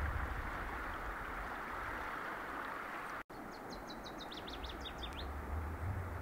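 Steady rush of flowing river water with a low rumble underneath. The sound drops out for an instant about three seconds in; just after, a small songbird gives a quick run of about a dozen high chirps lasting under two seconds.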